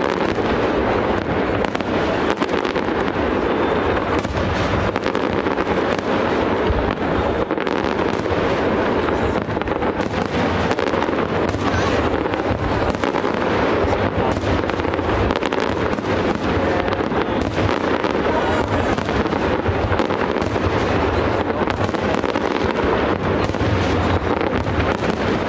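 Aerial fireworks display: a continuous, dense barrage of shell bursts and crackling, many bangs in quick succession.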